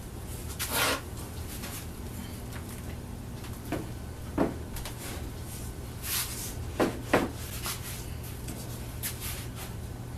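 A few short wooden knocks and a brief rustle over a steady low hum; the hum cuts off abruptly at the end.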